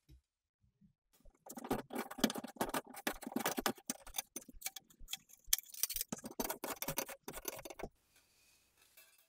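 Rapid, irregular metallic clicking and ticking as a bike pump's steel barrel is twisted into its metal foot base, starting about a second and a half in and stopping about a second before the end.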